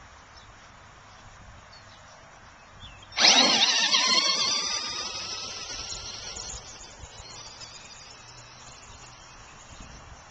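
Stock electric Traxxas Grinder RC monster truck taking off at full throttle about three seconds in. The motor and gears give a sudden loud whine that drops in pitch and fades over a few seconds as the truck speeds away.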